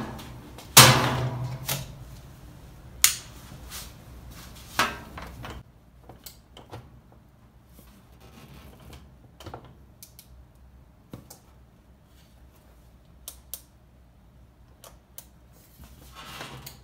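A loud knock about a second in, followed by a few seconds of low hum, then scattered clicks and taps as hands work the washer's control panel and its Start/Stop button.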